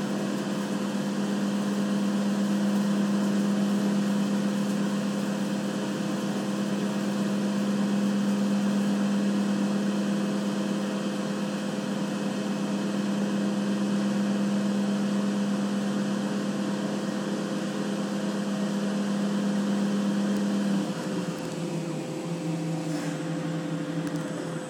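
CNC machine tool running steadily with a strong low hum and a higher whine over it; about 21 s in the hum drops to a lower pitch and gets a little quieter, as the spindle slows.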